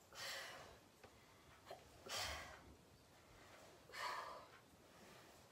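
A woman breathing hard from exercise: three forceful exhalations about two seconds apart.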